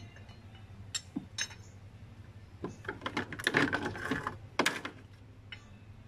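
Metal hand tools and parts being handled in a car's engine bay: two sharp clicks about a second in, then about two seconds of clinking and rattling, over a faint steady low hum.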